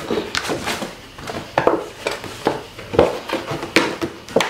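Thin clear plastic shoe-box body being bent and molded into shape by hand: irregular crackles, pops and rustles of the flexing plastic sheet, with a few sharper pops in the second half.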